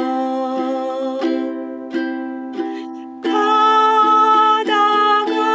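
Ukulele chords played in a steady pulse, one stroke about every two-thirds of a second, ringing on between strokes, louder from about three seconds in.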